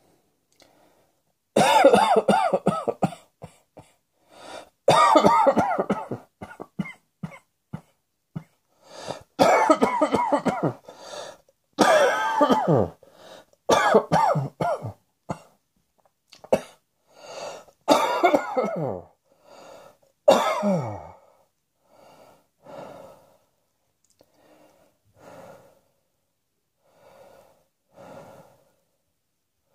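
A person coughing in a string of hard fits, several ending in a voiced tail that falls in pitch. After about twenty seconds the fits give way to softer short sounds spaced a second or two apart.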